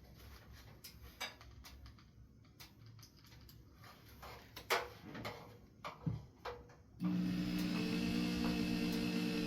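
Scattered light knocks and taps, then about seven seconds in a corded power drill starts up and runs at a steady speed.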